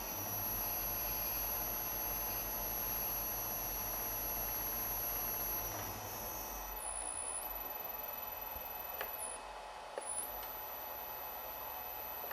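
Steady high-pitched electrical whine over a low hum; partway through the hum drops away and the whine steps abruptly down and back up in pitch a few times.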